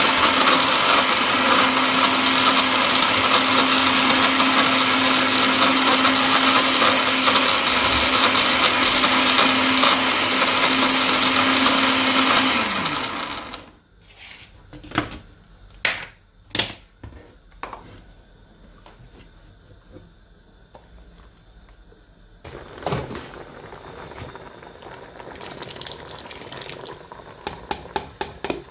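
Kenwood countertop blender running steadily at full speed, puréeing a wet mix of onions, pepper, crayfish and water; about 12 seconds in the motor winds down and stops. A few knocks follow as the jug is handled, and near the end comes a softer wet sound as the purée is poured into a pot.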